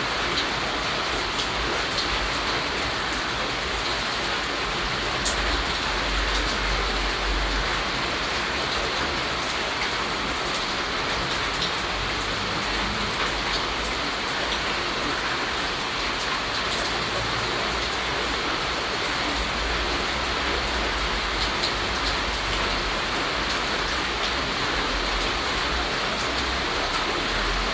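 Steady rain falling: an even hiss with scattered sharper ticks of single drops, over a low rumble that swells and fades several times.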